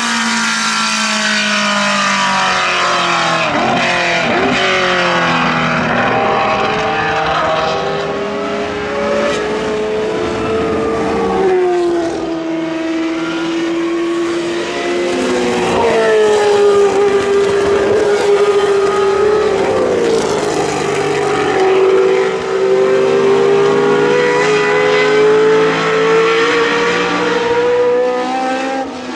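Historic Formula 1 racing cars driving past one after another, their engines revving high. The pitch falls and climbs again and again as the drivers brake, change gear and accelerate.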